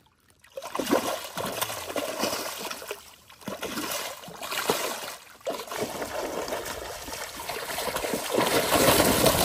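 Water splashing and trickling in uneven swells, loudest near the end.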